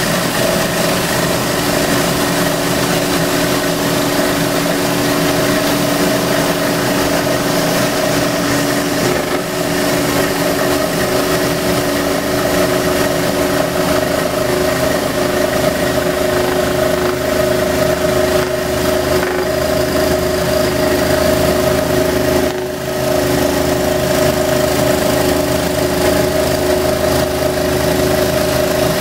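Scroll saw running steadily with a humming motor as its reciprocating blade cuts a curved outline through a wooden board.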